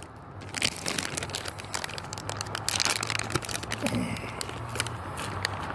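Irregular crackling and rustling noise over a low steady hum.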